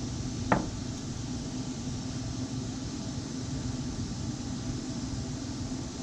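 A steady mechanical hum with one sharp knock about half a second in.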